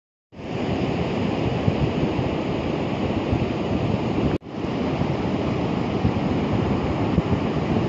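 Ocean surf breaking, with wind buffeting the microphone: a loud, steady rushing noise that drops out briefly about four seconds in.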